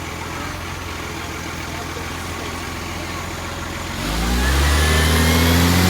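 Garbage truck's diesel engine idling steadily, then revving up about four seconds in, the rising engine note much louder.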